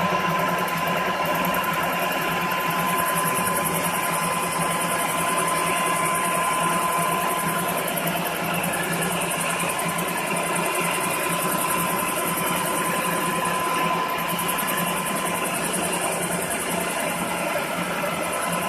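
Concrete floor grinding machine running steadily, its motor giving a constant whine over a steady grinding hiss.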